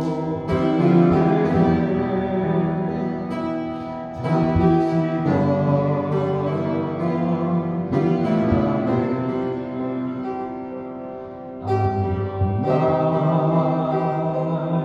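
Upright piano playing a slow hymn accompaniment without voice: full chords struck about every four seconds and left to ring and fade.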